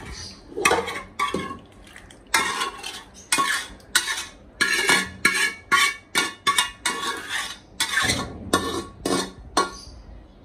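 Metal spoon scraping chicken masala out of a tilted metal bowl, clinking and scraping against the bowl's inside about three times a second.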